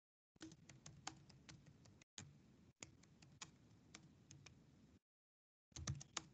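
Faint typing on a computer keyboard, irregular key clicks several per second, with the audio cutting out to dead silence for moments between the runs of keystrokes.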